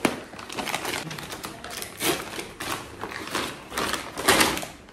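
Brown paper mailer rustling and crinkling as it is handled and opened by hand, in irregular crackles, the loudest about four seconds in.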